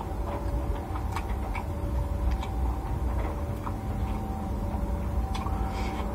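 A person chewing a mouthful of rice and fried food, with irregular wet mouth clicks and smacks over a steady low hum.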